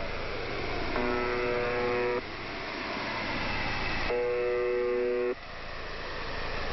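Electric buzzer sounding twice, each a flat buzz lasting a little over a second, about three seconds apart, over a steady background hiss.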